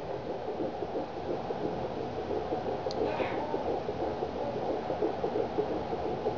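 Handheld fetal Doppler monitor's speaker giving a steady whooshing, pulsing sound as its probe rests on a pregnant belly, picking up the mother's heartbeat.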